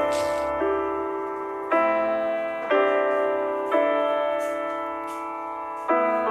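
Background music: slow keyboard chords, a new chord struck about once a second and fading before the next.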